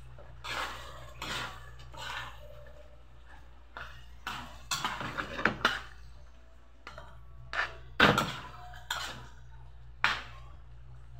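Metal ladle scraping and knocking against a steel wok as a thick, saucy stew is stirred: a series of irregular strokes, the loudest about eight seconds in, over a low steady hum.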